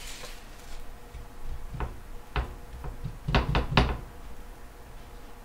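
About five sharp knocks and taps as a rolled dough round is handled on a wooden board on the stovetop. The last three come in quick succession about three and a half seconds in.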